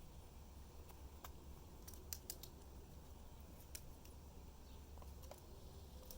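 Near silence: a low steady hum with a few faint, sharp clicks scattered through it, two close together about two seconds in.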